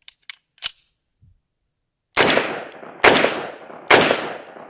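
Three short clicks, then three shots from a Grand Power Stribog SP10A3 roller-delayed blowback 10mm pistol, fired at a steady pace a little under a second apart, each ringing out into an echo.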